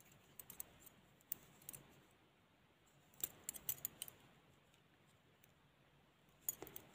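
Double-pointed knitting needles clicking and tapping against each other as stitches are worked on a set of five needles. The clicks come in a few short clusters.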